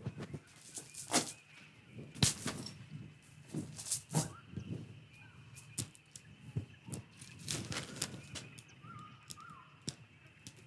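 A metal chain clinking and rattling in short, irregular clicks as it is moved and handled.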